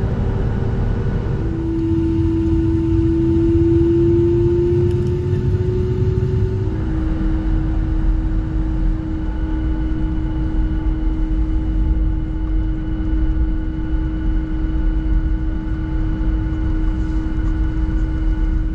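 Cabin noise of a Boeing 757-200 taxiing after landing: steady engine rumble with a droning hum. A couple of seconds in, the hum swells and rises slightly, then settles to a steady pitch.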